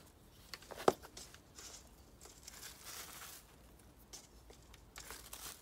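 Hands moving soil around seed potatoes in a basket lined with a black plastic bag: soft rustling of earth and crinkling of the plastic, with a sharp tap about a second in.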